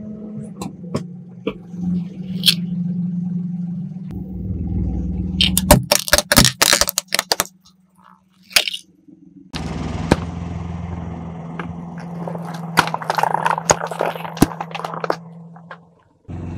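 A car tyre crushing small plastic objects: scattered cracks and a dense burst of crackling about six seconds in, over the steady low hum of the car's engine running. The sound stops abruptly twice.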